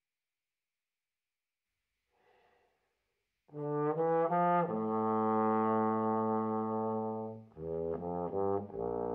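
Unaccompanied bass trombone: after a faint breath in, it starts about three and a half seconds in with a quick run of notes into a long held note, then a short run and a low sustained note near the end.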